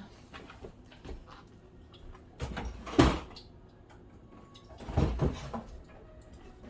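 Knocks and clunks of kitchen handling: a cluster of bumps with a sharp knock about three seconds in, and another short clatter about five seconds in.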